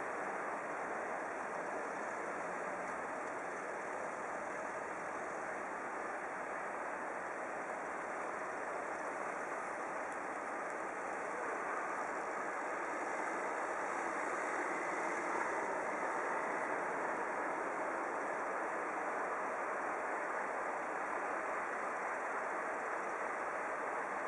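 Steady rumble of distant vehicle engines idling, with a car driving past over the snowy road and the sound swelling slightly about halfway through.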